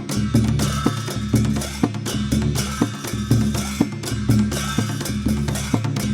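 Dhime, the Newar double-headed barrel drum, played in a rapid rhythm of strokes over a deep ringing boom, with cymbals clashing along in time.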